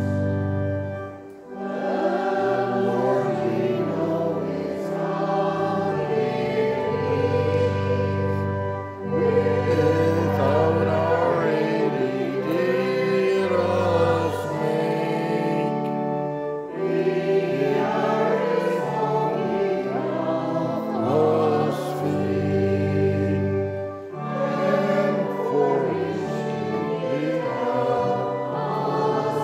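Church choir singing with organ accompaniment: voices carry the melody over long held bass notes, with short breaks between phrases.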